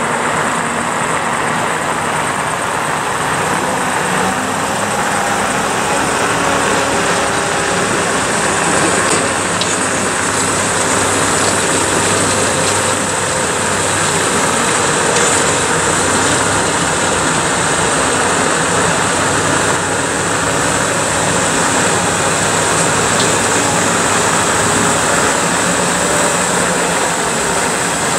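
Olympia ice resurfacing machines running as they drive over the rink: a steady, even machine noise with a low engine drone underneath.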